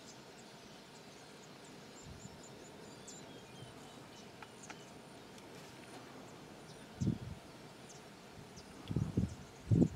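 Outdoor waterside ambience: a steady hiss with faint, short high chirps scattered throughout, broken near the end by three low thuds, about seven, nine and nearly ten seconds in.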